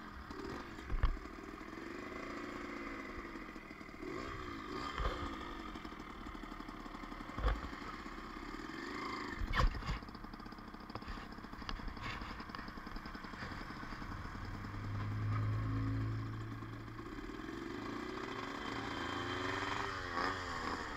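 Small motorcycle engine running near idle, its pitch rising and falling several times as the throttle is blipped, with a few sharp knocks and clatters: about a second in, and twice between seven and ten seconds.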